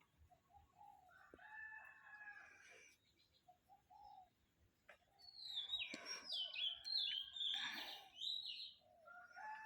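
A rooster crowing faintly about a second in, and again as a crow begins near the end. Between them, louder high whistled bird calls glide and step up and down in pitch.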